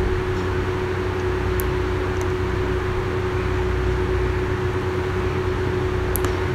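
Steady mechanical hum and hiss with a constant low tone, and two or three faint clicks of a slotted steel ladle against an aluminium kadai as greens are stirred.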